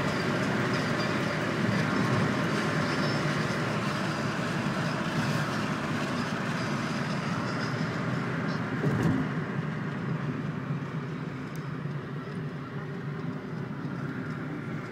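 Holden Commodore SS V8 with a Borla exhaust, heard from inside the cabin while driving: steady engine, exhaust and road noise. There is a brief bump about nine seconds in, and the noise eases off gradually after it.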